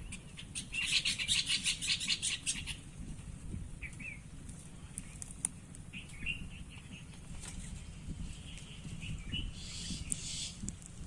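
A bird calling: a fast chattering run of repeated high notes for about two seconds, then scattered short chirps, over a steady low rumble.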